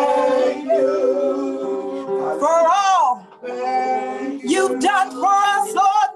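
A woman singing a gospel song over guitar accompaniment, with long held notes that waver and slide between short breaths.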